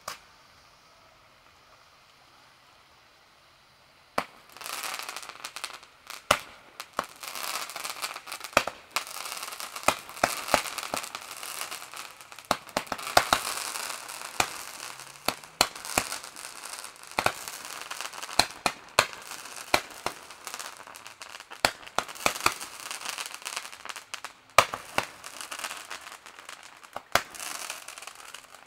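Fireworks going off: almost quiet for the first four seconds, then a dense, continuous crackling with many sharp bangs scattered through it.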